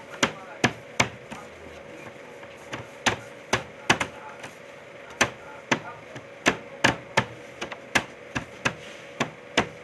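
Bread dough being worked by hand on a metal-topped bakery table: a run of sharp knocks, about two to three a second and uneven, pausing briefly about a second in.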